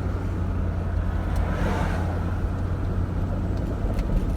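Steady low rumble of a car driving at road speed, heard from inside the cabin: engine and tyre noise. A brief hiss swells and fades about a second and a half in.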